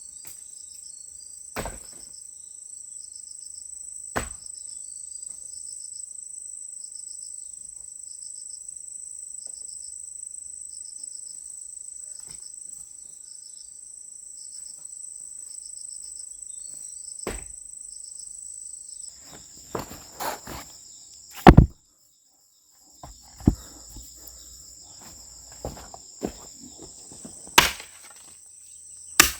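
Steady high-pitched chirring of insects, with a few single sharp knocks in the first twenty seconds and a run of louder knocks and thuds over the last ten, the loudest about two-thirds of the way through.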